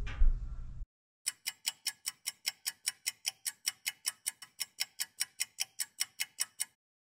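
Clock-ticking sound effect: rapid, even ticks about four or five a second, starting just over a second in and running for about five seconds over total silence. A sharp knock is heard just before, with room noise.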